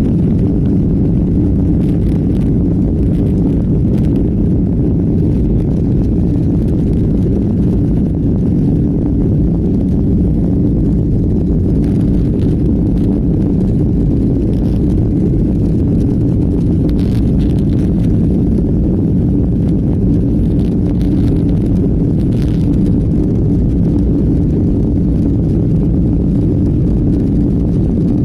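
Airplane in flight heard from inside the cabin: a loud, steady, low drone of engines and airflow that does not change.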